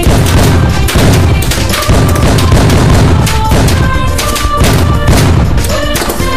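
A dense, continuous barrage of firecrackers: rapid, overlapping crackling pops mixed with deep booms, with no break.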